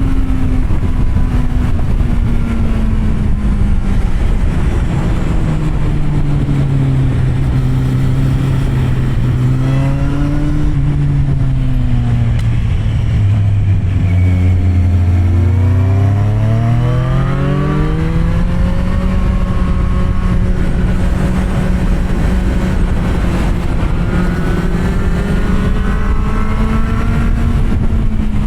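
Kawasaki Z750R's inline-four engine through an SC-Project exhaust, ridden on the road. The engine note drops gradually through the first half, rises sharply just past the middle as the bike accelerates, then holds at a steady higher pitch.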